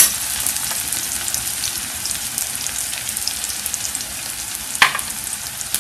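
Chopped onion frying in hot oil in a kadhai with curry leaves and cumin: a steady crackling sizzle. There is one sharp click at the start and another near the end.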